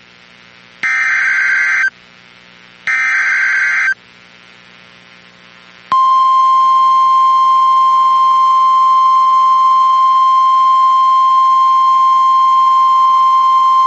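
NOAA Weather Radio Emergency Alert System signal. The last two of the three SAME header data bursts come first: harsh warbling digital screeches, each about a second long with a second's pause between them. About six seconds in, the National Weather Service's steady single-pitch 1050 Hz warning alarm tone starts and holds. The sequence marks the start of a weather warning broadcast, here a flash flood warning.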